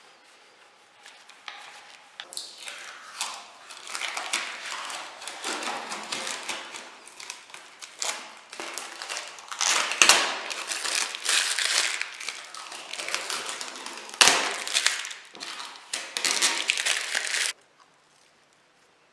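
Irregular crunching and crackling noises with a few sharp knocks, cutting off abruptly near the end.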